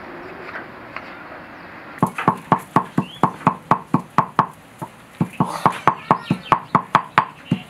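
Stone pestle pounding in a hand-hewn stone mortar: a fast, even run of sharp knocks, about four to five a second, starting about two seconds in, with a short break in the middle.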